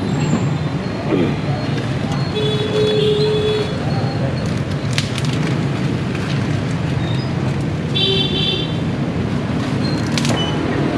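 Busy street ambience: a steady wash of traffic and engine noise with voices under it. There are two short high-pitched horn toots, about two and a half seconds in and again about eight seconds in, and a couple of sharp clicks near the middle and near the end.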